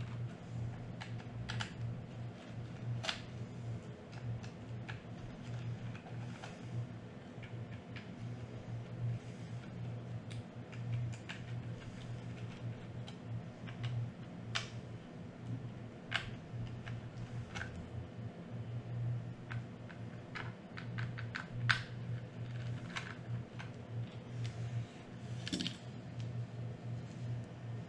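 Small irregular clicks and ticks of a precision screwdriver backing out tiny screws from a RED Epic-X camera body and the screws being handled, over a steady low hum.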